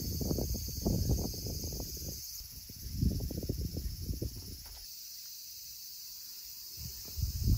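Steady high-pitched insect chirring, under irregular low rumbling bursts that are the loudest sound. The rumbling comes and goes twice in the first five seconds, then returns near the end.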